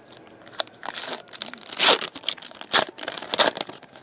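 Trading card pack wrapper being torn open and crinkled by hand: irregular crackling with a few louder rips, the loudest about two seconds in.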